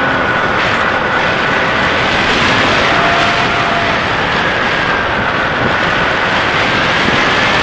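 Electric brushless motor and pusher propeller of a HobbyKing Bix3 foam RC plane whining steadily in flight, heard through an onboard camera under loud air rush. The whine's pitch wavers slightly with the throttle.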